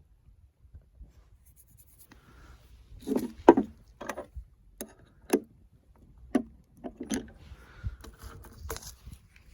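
A string of irregular knocks and clatters, about eight, spread over some six seconds starting about three seconds in: hard objects being handled and set down.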